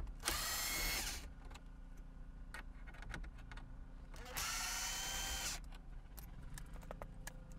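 Power driver with a T20 Torx bit running in two short whirs, each about a second long and a few seconds apart, backing out the two screws that hold the dash trim bracket. Small clicks and taps come between the whirs.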